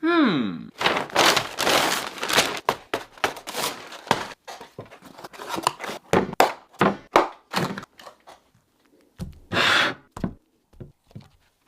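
A short falling tone, then a quick, irregular run of crinkling, crunching and knocking noises, with a louder rustling burst about three-quarters of the way through.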